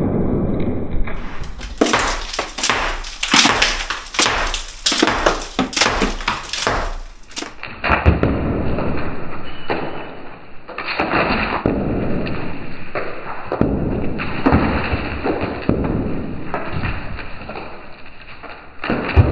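Hammer blows knocking old bricks and crumbly mortar out of a brick wall by hand, in a run of sharp, irregular knocks, with loose bricks and rubble clattering down.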